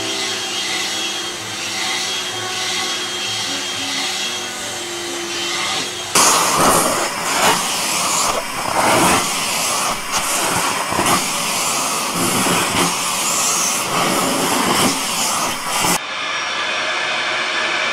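Household vacuum cleaners running. First a steady hum; then, about six seconds in, a louder rushing stretch that swells and drops unevenly as the nozzle is drawn over a cat's fur; then a sudden change to another steady vacuum sound near the end.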